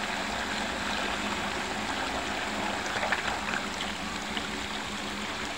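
Water rushing steadily as it swirls down into a deep whirlpool vortex, with a faint steady hum underneath. A few brief louder spatters come about halfway through.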